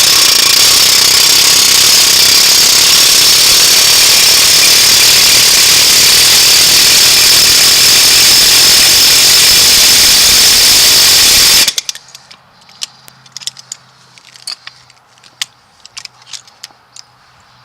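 Pneumatic air hammer running nonstop for about twelve seconds, hammering on a stuck U-joint bearing cap on a truck drive shaft, then cutting off suddenly. Light clicks and taps follow.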